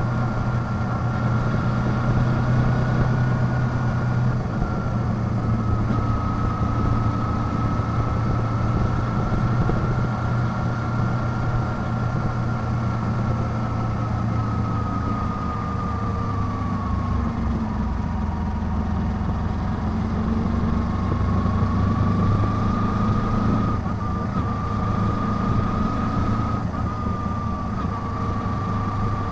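Kawasaki Ninja 250's parallel-twin engine running steadily under way, over even road and wind noise. Its pitch sinks about halfway through as the bike slows, then rises again as it picks up speed.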